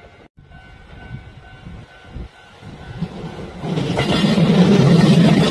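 A Kintetsu electric train passing: after a brief cut, a quiet stretch with a few knocks, then the train's running noise swells up about three and a half seconds in and stays loud.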